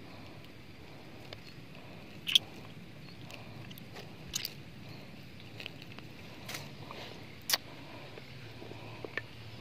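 Steady rushing noise of a fast river in the rain, broken by a few sharp isolated clicks, the loudest two about two seconds in and near the end.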